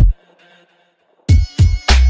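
Background music with a beat that breaks off for about a second of near silence, then comes back in with three heavy bass-drum hits.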